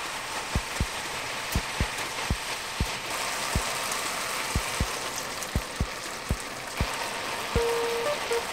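Shrimp and bean sprouts in chili seasoning sizzling in a hot frying pan. The sizzle grows louder about three seconds in, as a little water goes into the pan, and eases again near the end.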